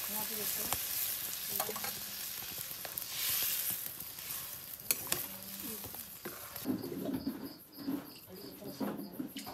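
Chicken curry sizzling in a metal karahi over a wood fire as liquid is poured in and a ladle stirs it, with a few sharp clicks of the ladle against the pan. Near the end come low voices and a high chirp repeating a few times a second.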